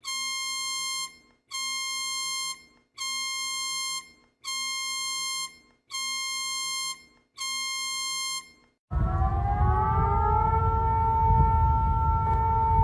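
Emergency alert alarm: six identical buzzy electronic beeps, each about a second long and about a second and a half apart. About nine seconds in, a warning siren starts up, its pitch rising and then holding steady over a low rumbling noise.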